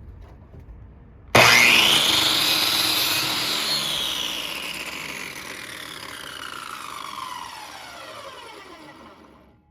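Power saw motor switched on with a sudden start about a second in, its whine rising briefly. It then winds down with a steadily falling pitch and fading level over about eight seconds as the blade coasts to a stop.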